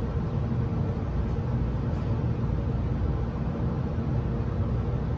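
Steady low rumbling hum of background noise, even throughout, with no distinct knocks or clicks.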